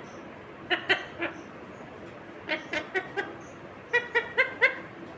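Indian ringneck parakeet giving short chirping calls in three quick bursts, the last a fast run of about five notes near the end.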